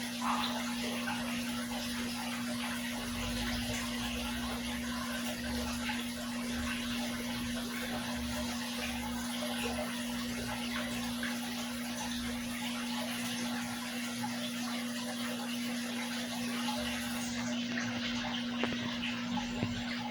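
Water in a fish tank trickling and splashing steadily, over a steady low hum.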